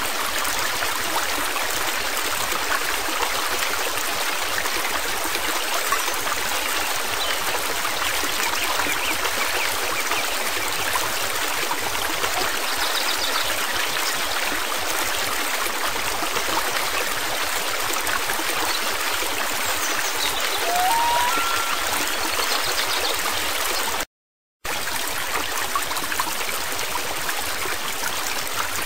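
Steady rush of a flowing stream, an even hiss without let-up, broken by a complete dropout of about half a second a little after 24 seconds in.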